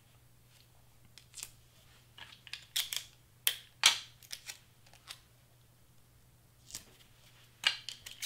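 Adhesive tape pulled off a roll and torn in a series of short, sharp rips, several times over, with stiff cardstock handled and pressed flat.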